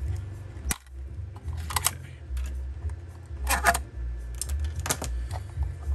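Small plastic clicks and rattles of wires, cable ties and crimped spade connectors being handled as the capacitor is worked loose and pulled out of the EasyStart 368 soft starter's circuit board area. The clicks are scattered, a few single ones and a quick cluster past the middle, over a steady low rumble.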